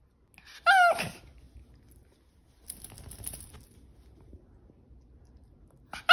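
A small long-haired dog giving two short, high yelping whines, one about a second in and one at the very end, each dropping in pitch as it closes. A soft rustle of bedding comes in between.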